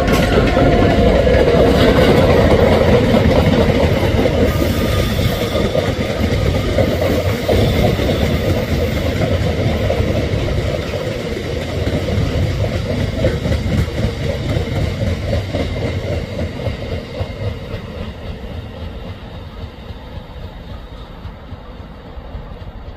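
Freight train box wagons rolling past, their wheels clattering on the rails. The sound fades steadily over the second half as the end of the train moves away.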